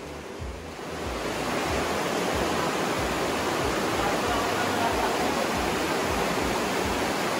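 The Aare river rushing through its gorge: a steady rush of water that grows louder about a second in and then holds.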